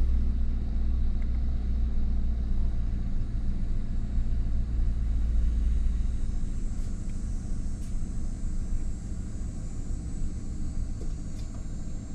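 Chevrolet 4.8-litre V8 idling steadily while the scanner logs a misfire, though it sounds like it's running okay at idle. Its deep low rumble eases about halfway through.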